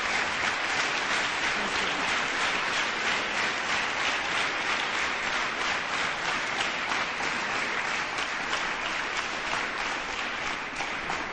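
A room of people applauding, a dense steady clapping that stops abruptly at the end.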